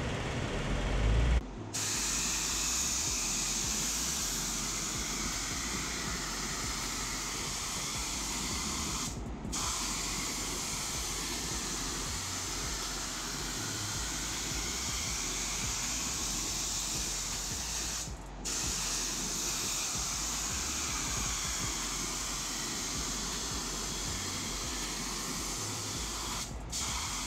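Paint spray gun hissing steadily as it sprays primer, cutting out briefly three times, about every nine seconds. A short low rumble comes just before the hiss starts, about a second and a half in.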